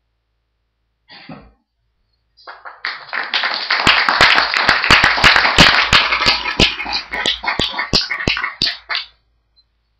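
Audience applauding: dense clapping that starts about two and a half seconds in, with some sharp, close claps, and dies away about a second before the end. A brief noise is heard just after one second in.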